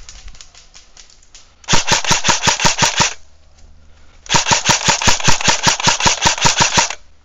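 Airsoft electric AKS-74U replica firing on full auto: two rapid bursts of evenly spaced shots, a short one about a second and a half in and a longer one of about two and a half seconds after a pause.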